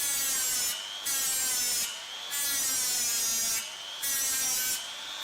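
Electric straight grinder with a stripping wheel scrubbing undercoating and rust off the car's steel subframe mount in four passes of about a second each. Between passes it lifts off briefly and the motor's whine rises in pitch as it speeds back up.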